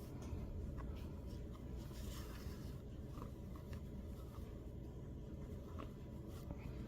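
Faint rustling and light ticks of yarn and crocheted fabric being handled as a yarn tail is stitched through, over a steady low hum.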